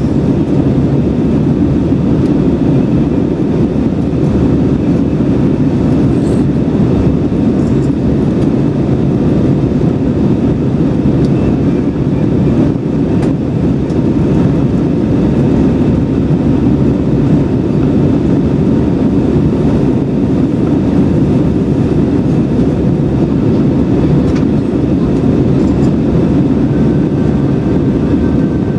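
Steady in-flight cabin noise of an Airbus A320-200: an even, low rush of engines and airflow heard through the cabin, with faint steady tones above it.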